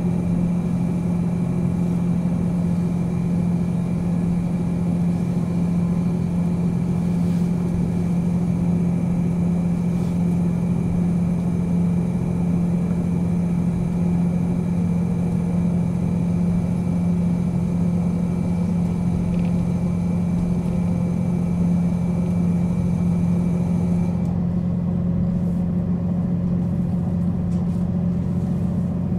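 JR Hokkaido KiHa 40 diesel railcar's engine idling steadily, a constant low hum. A faint high hiss drops out about 24 seconds in.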